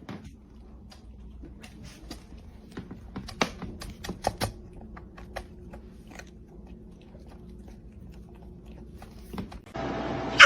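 Irregular small clicks and taps, a few a second, the loudest ones about three and a half to four and a half seconds in, over a faint hum. Near the end a louder steady hiss comes in.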